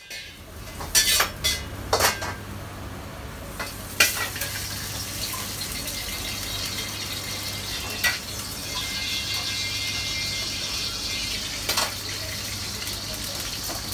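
Vegetables stir-frying in a wok over a high gas flame: a steady sizzle, with the metal ladle knocking and scraping against the wok, several sharp clanks in the first few seconds and a few more later.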